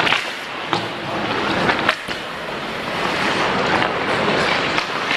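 Ice hockey skate blades scraping and carving on rink ice, a steady rasping hiss, with a few sharp clacks of sticks and puck in the first two seconds.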